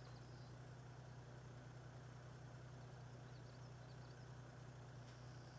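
Near silence: a steady low hum, with a few faint high chirps now and then.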